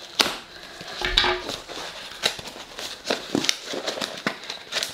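Cardboard packaging being cut and torn open by hand: irregular crackling, rustling and small clicks. A pair of scissors is set down on a wooden tabletop.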